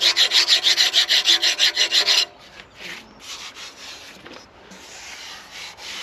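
A hand file rasping in quick, short strokes against the rust-pitted cast iron bore of a Victorian radial drill's arm, filing back rust-raised spots so the column will slide in. The filing stops about two seconds in, and fainter scuffing sounds follow.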